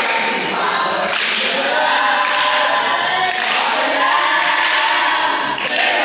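A cheer team's voices chanting and singing a cheer together in unison, with a fresh loud line starting about once a second.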